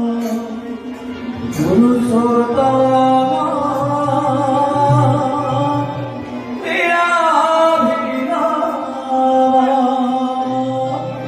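Kirtan: male voices singing a devotional song in long held, gliding notes, with instrumental accompaniment.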